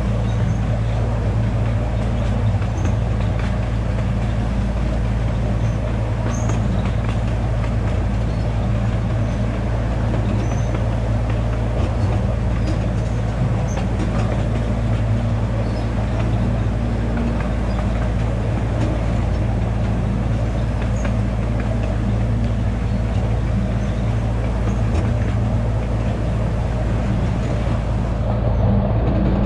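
Small passenger tour train running steadily, its engine giving a constant low drone with light rattles from the cars, heard from a passenger seat.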